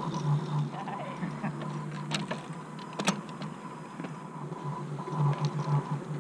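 Bicycle riding over a dirt trail heard through a bike-mounted action camera: a steady low rumble with a faint high whine and a few sharp clicks or knocks, the loudest about three seconds in.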